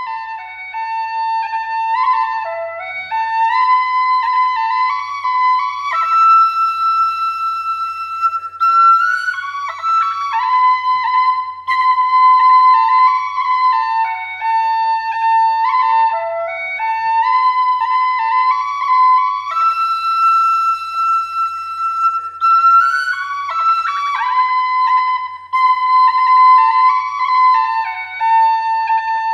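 Background music: a single flute-like melody line, with a long held high note about six seconds in and again about twenty seconds in, as the phrase repeats.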